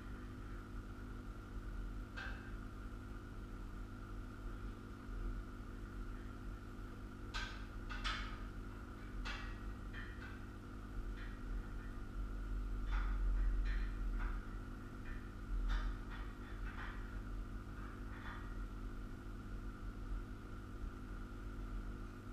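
Scattered light clinks and knocks of hand tools and steel parts being handled while a sawmill frame is bolted together, over a steady electrical hum and a faint steady tone.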